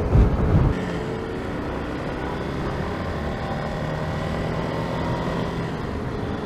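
Motorcycle running at a steady cruise on the road, with engine and wind noise from the riding camera's microphone. Heavy wind rumble on the microphone in the first second, then an even drone with a faint engine pitch that rises slightly later on.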